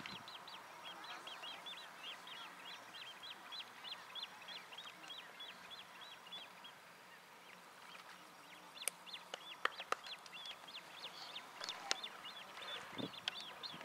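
Great crested grebe chicks piping, a fast run of short high begging notes, about four or five a second, that pauses briefly in the middle and then resumes. A few sharp clicks and a dull thump come in the second half.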